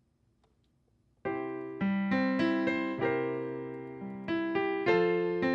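Piano playing the opening of a song, starting suddenly about a second in after a short silence: notes and chords struck about every half second, each left to ring and fade.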